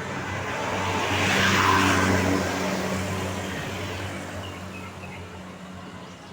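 A large diesel vehicle, most likely a tour bus, driving past. Its engine and tyre noise swell to a peak a second or two in, then fade away.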